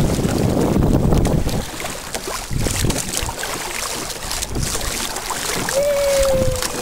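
Wind buffets the microphone heavily for the first second and a half. After that, water splashes and slaps against a canoe hull and its stabilizer float as the canoe moves through choppy water. Near the end a single held tone, falling slightly in pitch, lasts about a second.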